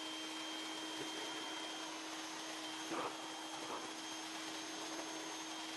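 IK Foam Pro 12 battery-powered sprayer running, its gun spraying water into a car's wheel well: a steady hiss of spray over the even hum of its electric motor.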